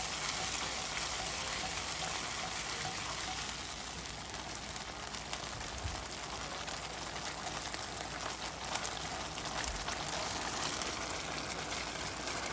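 Thick sweet-and-sour sauce, just thickened with cornstarch, bubbling at a boil in a nonstick wok: a steady spread of small pops and bubbling, with a silicone spatula stirring through it at times.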